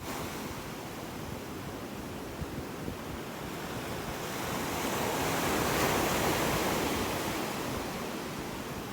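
Sea waves washing on a beach: a steady wash that swells to a peak about six seconds in, then draws back.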